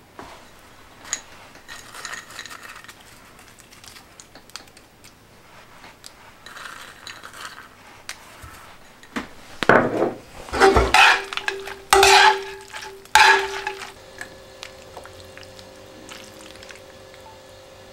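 Metal tongs stirring and tossing spaghetti in a cast-iron skillet: soft scraping and sloshing, then a run of loud clanks of the tongs against the pan a little past halfway, the pan ringing after them. Quiet music comes in near the end.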